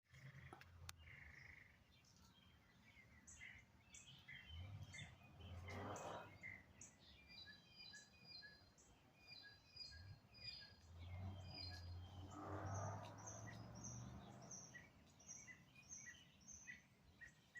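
Wild birds chirping and calling faintly, with a quick run of high repeated notes near the end. Twice a low rumble swells up and fades away, once about five seconds in and again for several seconds from about ten seconds in.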